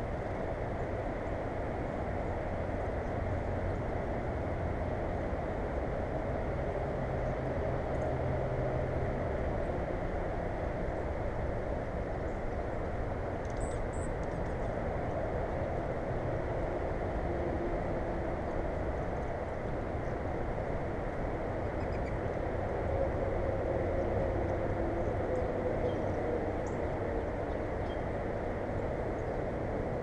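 Steady, muffled low rumble of outdoor background noise with faint pitched hums drifting slowly in it. Two faint high chirps come about 14 seconds in.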